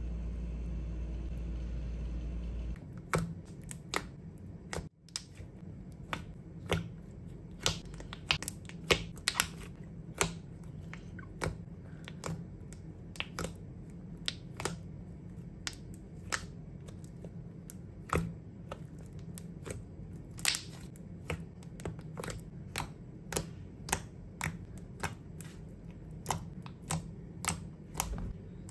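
Soft slime being pressed and poked with the fingers, giving sharp, crisp clicks and pops at an irregular pace of about one or two a second. A low steady hum fills the first few seconds.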